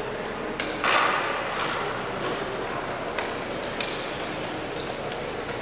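Diabolo juggling: scattered light clicks and taps as the handsticks are let go and caught in suicide tricks, with a brief louder swish of the string about a second in.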